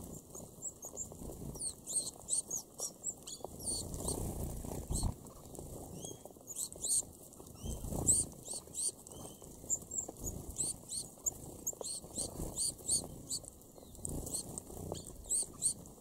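A flock of red-browed finches calling with many short, high, thin chirps, overlapping all the while. Flurries of wingbeats and rustling come about four seconds in and again about eight seconds in.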